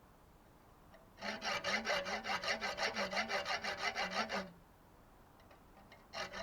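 Small metal part being cut by hand with quick back-and-forth rasping strokes: a screwdriver slot for a new carburettor air bleed valve. The strokes run for about three seconds, then a shorter burst starts near the end.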